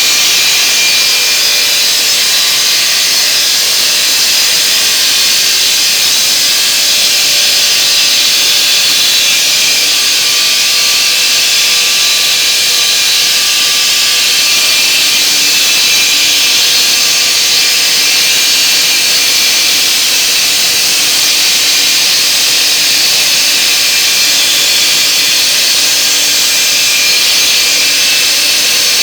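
Homemade semi-automatic stone-cutting saw running and cutting stone, a loud, steady high-pitched noise that holds without a break.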